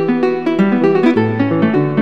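Instrumental background music of quick plucked notes.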